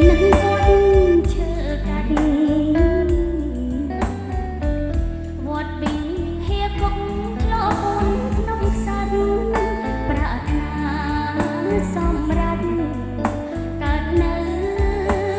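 A woman singing a Khmer song into a handheld microphone over an instrumental backing with a bass line and regular percussive strokes.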